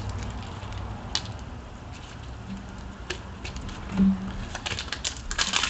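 Trading card packs and cards being handled and opened: faint scattered crinkles and clicks, growing busier near the end, over a low steady hum.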